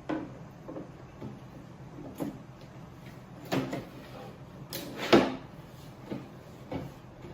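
A series of separate knocks and clunks as a panel top is fitted into a drawer of a kitchen bed platform, the loudest about five seconds in.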